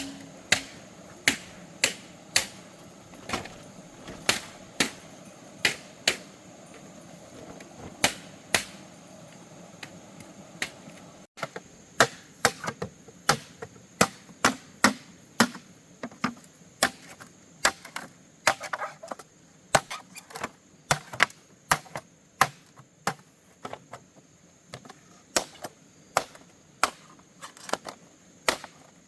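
Repeated chopping with a blade: sharp strikes, about one a second at first, then quicker, two to three a second, from about eleven seconds in.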